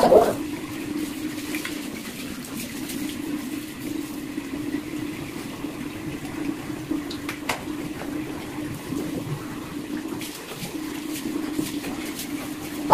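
Bathroom sink tap running steadily into the basin while someone washes their face under it, with a few small splashes.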